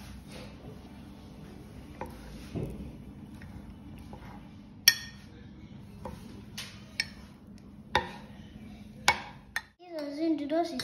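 Metal spoon stirring an oily mixture of chopped onion and garlic in a glass mug, scraping steadily with several sharp clinks of spoon against glass. Near the end a child's voice starts singing.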